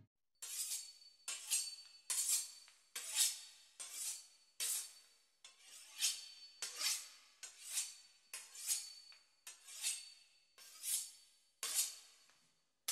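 A knife sawing back and forth through the crisp pastry crust of a beef Wellington: a regular run of short scraping strokes, roughly one and a half to two a second.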